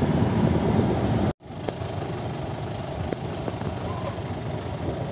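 Car driving along, its engine and road noise heard from inside the cabin. The sound drops out for an instant about a second and a half in and comes back quieter.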